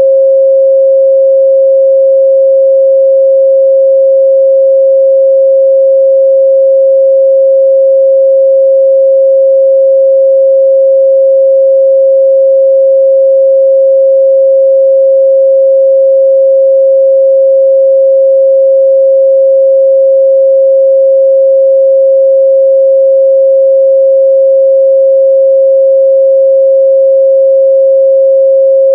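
A steady, loud 538 Hz pure sine tone, unchanging in pitch and level: a test tone for checking speaker and headphone response.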